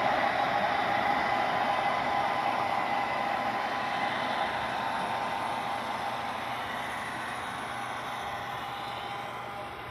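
HO-scale model freight cars rolling along the track: a steady whirring rumble of wheels on rail that fades gradually as the train moves away.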